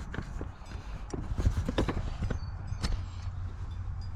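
Scattered sharp clicks and knocks of parts and tools being handled around the mower engine, over a steady low rumble.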